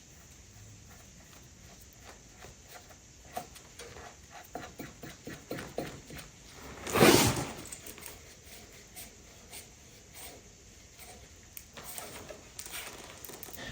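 Small irregular clicks and taps of a screw-in oil pressure gauge being turned and tightened into its fitting on a tractor engine. About seven seconds in there is one brief, louder rush of noise.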